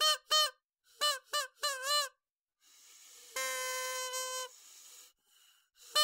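Party horns without paper tongues blown in short reedy honks: two quick toots, then three that waver in pitch. A faint hiss follows, then one long steady honk of about a second.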